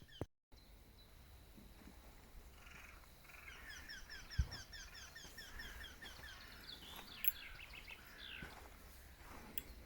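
A small cat mewing in a quick run of short, high cries over several seconds, with a single thump about halfway through.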